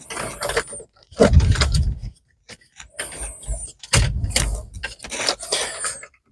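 Plastic dashboard trim and the radio unit of a Kia Sorento being handled and fitted back into the dash: a few bouts of knocking and rubbing, with short high squeaks of plastic sliding on plastic.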